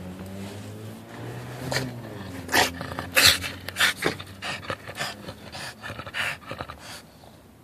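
French bulldog panting and snorting in quick, irregular bursts that start about two seconds in, loudest about three seconds in. A steady low hum underlies the first two seconds.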